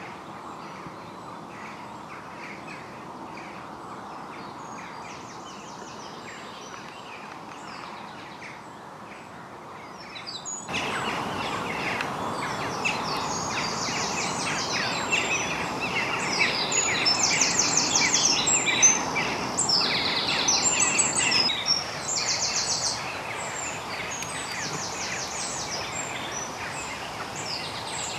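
Several songbirds singing, with quick rattling trills and chirps, over a steady background rush. About ten seconds in, everything gets suddenly louder and the birdsong becomes much fuller.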